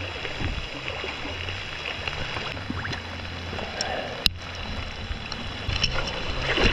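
Small boat's outboard motor running steadily, with water and wind noise over it; a single sharp click about four seconds in.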